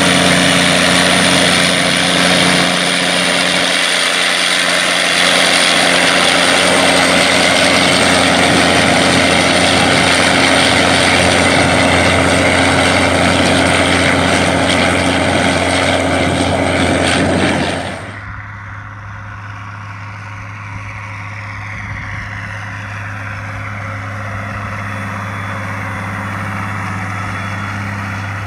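A large International four-wheel-drive tractor's diesel engine running hard while pulling a tillage implement through the field. About two-thirds of the way in it cuts suddenly to the quieter, steady engine hum of an International 5488 tractor pulling an air seeder.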